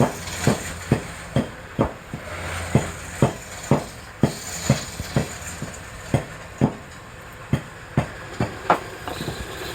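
A steady series of sharp knocks, about two a second, over a low steady hum.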